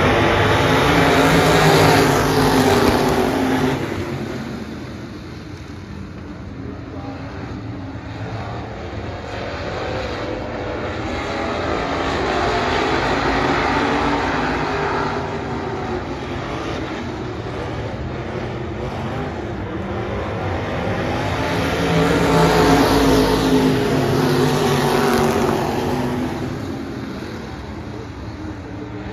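A field of USRA Stock Cars' V8 engines racing around a dirt oval. The sound swells as the pack passes, drops in pitch as it goes by, and fades down the far side, three times: near the start, about halfway, and near the end.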